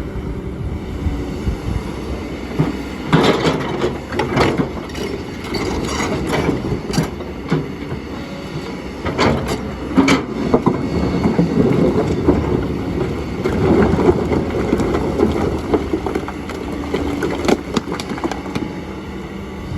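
Kobelco excavator's diesel engine running steadily under load, with clusters of clanks and scrapes from the bucket working against stones every few seconds.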